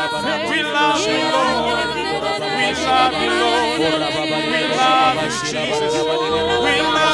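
Congregation singing a worship song together, many voices overlapping, over low notes held for a second or two at a time.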